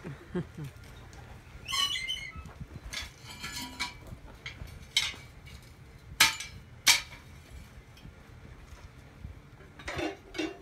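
Birds chirping outdoors, with a few sharp metallic clanks, the two loudest a little past the middle, as the lid of a crucible furnace is lifted off and the pouring tongs are handled.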